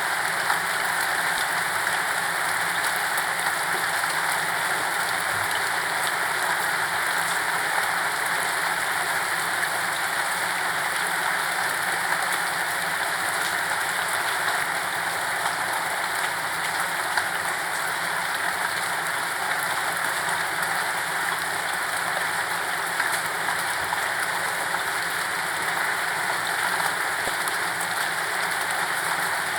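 Steady rain falling and pattering on a surface, with no thunder, an even hiss of many small drops.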